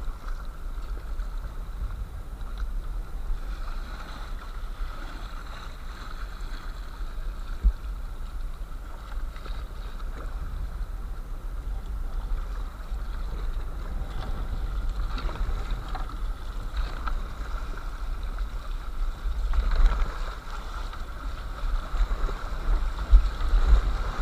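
River water rushing and splashing around a kayak as it paddles down a shallow, fast stretch, with paddle strokes in the water and a steady low rumble on the camera microphone. The water gets louder near the end as the kayak enters a gravel riffle.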